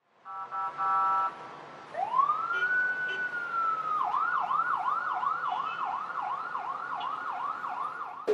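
Emergency-vehicle electronic siren: a few short horn-like blasts, then about two seconds in a long rising wail that holds, switching about four seconds in to a fast yelp that rises and falls about two or three times a second.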